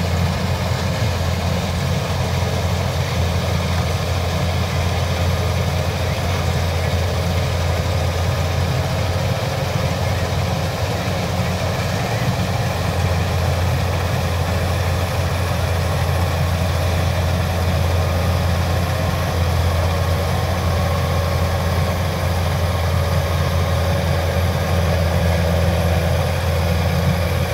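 Kubota DC-105X rice combine harvester's diesel engine running steadily as the machine cuts and threshes rice.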